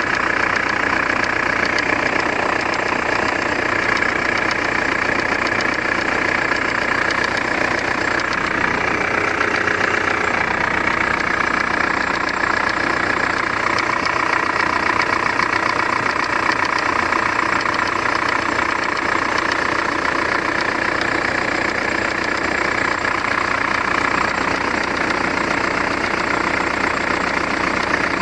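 Mitsubishi 4M41 3.2-litre four-cylinder turbodiesel idling steadily with a rapid, even knock running through it, the engine knock that is being recorded for diagnosis.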